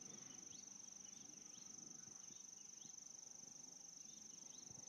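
Crickets trilling steadily in a faint, continuous high-pitched chirring, with faint short rising chirps every second or so; otherwise near silence.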